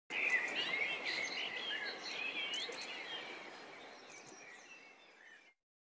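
Several birds chirping and whistling over a steady background hiss, the whole fading out near the end.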